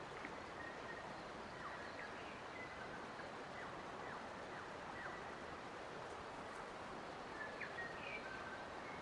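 Forest ambience: a steady, even hiss with small birds calling over it in short whistled notes and quick falling chirps, scattered through and bunched together near the end.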